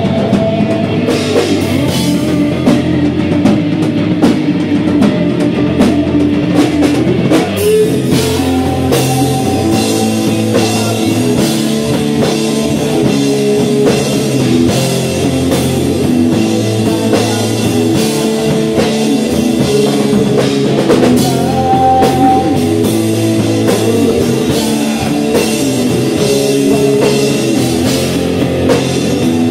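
Live rock band playing loudly: amplified electric guitar over a drum kit.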